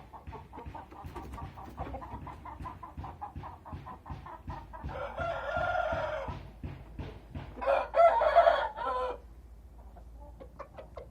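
Chickens in a rooster-and-hens flock clucking in a quick series, about five or six clucks a second. About five seconds in and again about eight seconds in come longer, louder calls, the second the loudest, followed by quieter scattered clucks.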